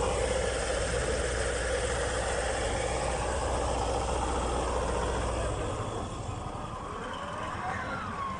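Small tractor's engine running steadily as it drives across a slope; the steady low hum weakens after about six seconds as the tractor starts to tip.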